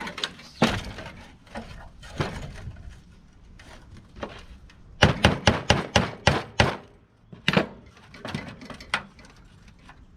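Sharp metal knocks and clanks from hand tools working on a rusted truck heater: single strikes scattered through, with a quick run of about eight raps, some five a second, about halfway through.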